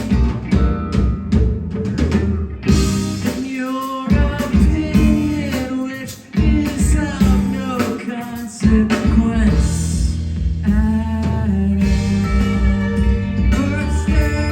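Live rock band playing, with electric guitar, bass and drum kit, and a steady drum beat.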